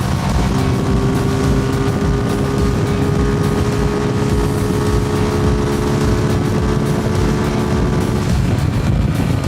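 Suzuki Gixxer SF's single-cylinder engine and exhaust running under way at a steady, slowly easing pitch, with the note changing near the end.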